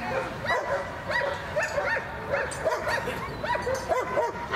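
Shepherd dog barking and yelping rapidly in shrill, high-pitched bursts, about three a second, at the helper holding the bite sleeve: an aroused dog in bite work, waiting to be sent for the apprehension.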